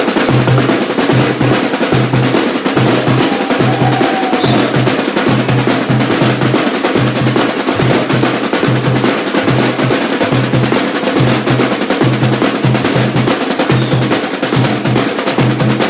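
Samba bateria (drum section) playing a samba beat: low surdo bass drums keep a steady pulse of about two strokes a second under a dense layer of snare drums and other smaller percussion.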